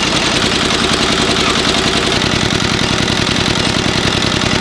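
Yanmar NS50 single-cylinder diesel engine running steadily with a fast, even chugging, belt-driving a bakery dough roller while dough is fed through its steel rollers.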